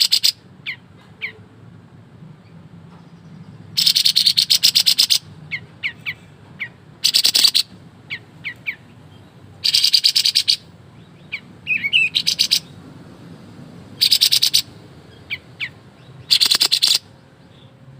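Kapas tembak, a bulbul kept as a cage songbird, singing in rapid-fire rattling bursts, six bursts each about a second long, with short single chirps between them: the fast, dense 'ngebren' delivery that keepers prize.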